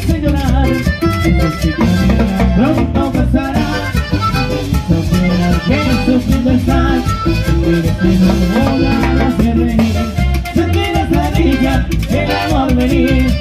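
Live accordion-led cumbia band playing: an accordion melody over electric bass, acoustic guitar and a pair of timbales keeping a steady beat.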